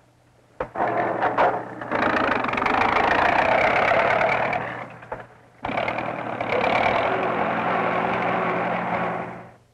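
Forklift engine running as the truck moves loaded pallets. The noise starts about half a second in, drops out briefly around the middle, then resumes and fades away near the end.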